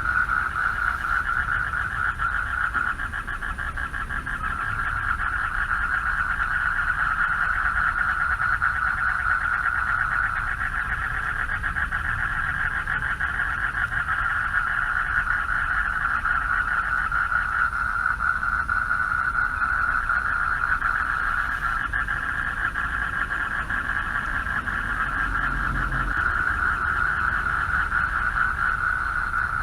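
Chorus of male frogs calling for mates from a pond: a dense, steady, rapidly pulsing chorus at one pitch that never breaks.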